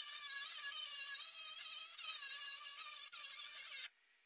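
Angle grinder dressing down weld beads on a welded steel sheet-metal patch panel, a high whine that wavers in pitch as the disc bites the metal. It dips briefly about three seconds in, then stops shortly before the end.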